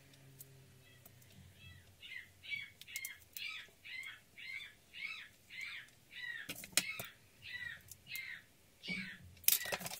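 An animal calling over and over, short high arched calls about twice a second that start about a second and a half in, with a few sharp clicks and knocks of things handled on a table, the loudest near the end.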